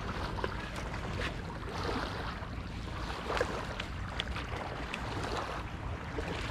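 Steady wind and surf noise with a deep rumble of wind on the microphone, and a few faint clicks.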